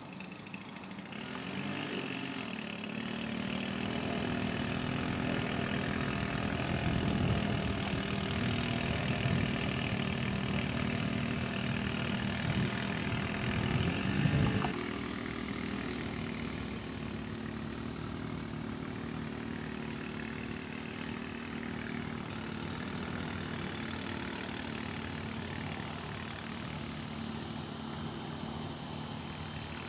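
A small engine running steadily. It builds up over the first couple of seconds, then drops off abruptly about halfway through and runs on more quietly.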